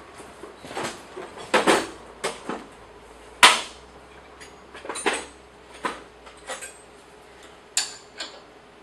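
A spanner clinking and clicking on the lock bolt of a bandsaw's lower blade-guide assembly as the bolt is loosened: about a dozen irregular sharp metal taps, the loudest about three and a half seconds in.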